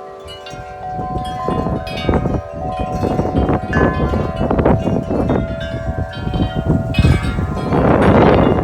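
Wind chimes clanging wildly in strong gusts, their metal tubes struck over and over so the ringing notes pile up. Near the end a gust rushes across the microphone over the chimes.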